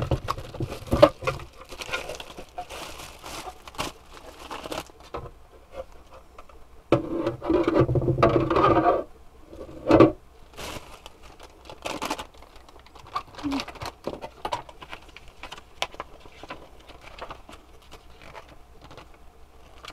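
Plastic packaging crinkling and rustling as it is handled, with irregular small clicks. A louder stretch of rustling and rubbing comes about seven to nine seconds in, followed by a sharp knock about ten seconds in.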